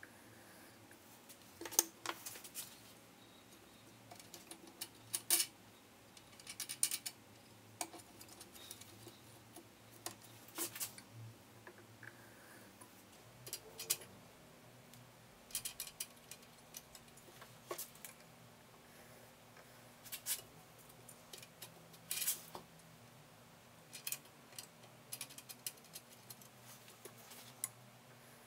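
Pencil drawn in short scratchy strokes along a wooden straightedge, marking lines on a wooden spindle blank, with small clicks of handling between strokes, every one to three seconds.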